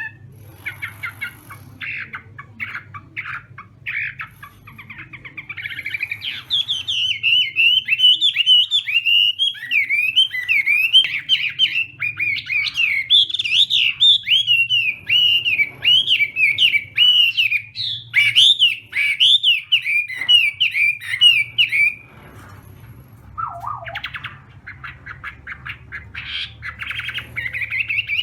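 Chinese hwamei (họa mi) singing. It opens with short bursts of quick repeated notes, then from about six seconds in gives a long, loud run of fast, varied whistled phrases that rise and fall. This breaks off for a moment with a single falling note, and quick repeated notes pick up again near the end.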